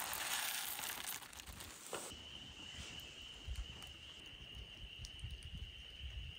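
Campfire crackling and hissing, then about two seconds in a steady high-pitched animal call begins and holds without a break.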